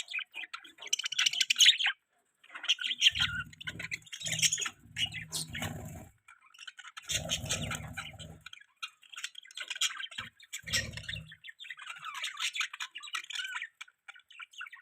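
Pet budgerigars chirping and chattering in quick runs of short, high chirps, with a brief pause about two seconds in.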